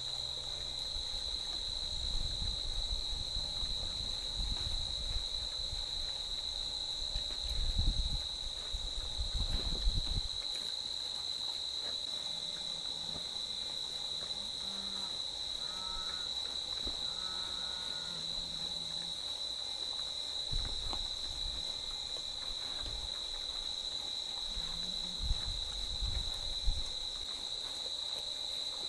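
Steady, high-pitched chorus of night insects, a single unbroken trill. A few dull low thumps are heard, the loudest about a third of the way in.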